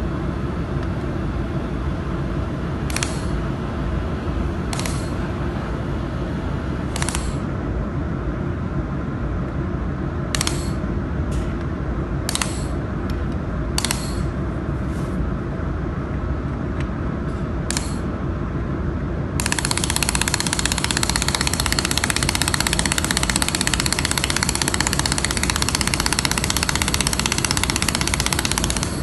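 Handheld laser welding on galvanized steel sheet over a steady low machine hum. Several brief sharp bursts come first, then about two-thirds of the way through a continuous crackling hiss of the weld sets in.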